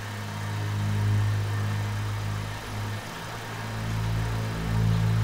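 Car engine idling, heard from inside the cabin: a steady low hum that swells and eases in loudness.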